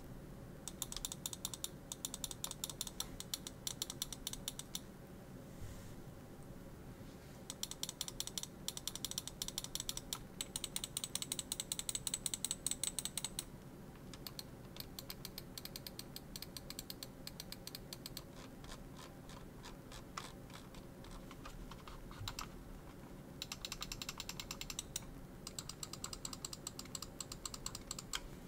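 Fantech Aria XD7 gaming mouse buttons clicked in rapid runs of quick, sharp clicks, with short pauses between the runs. One run in the middle is quieter, and a few scattered single clicks come shortly after it.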